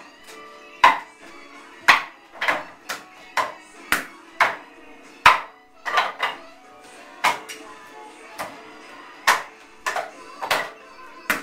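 Hands and forearms knocking against the wooden arms of a wing chun wooden dummy (mook jong). The sharp knocks come irregularly, about two a second, some in quick doubles or triples.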